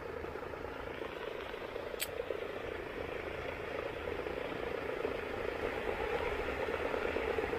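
Pond paddlewheel aerator running steadily, its motor and paddles churning the water, with one sharp click about two seconds in.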